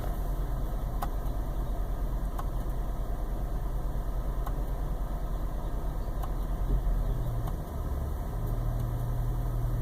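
2006 Honda Odyssey's 3.5-litre V6 idling steadily, heard from inside the cabin, with a few faint clicks.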